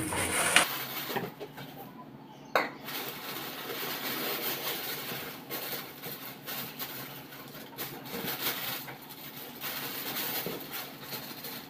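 Rustling plastic bag and shifting rice grains as a packet is worked into a plastic rice container, with small knocks throughout and one sharp clack about two and a half seconds in.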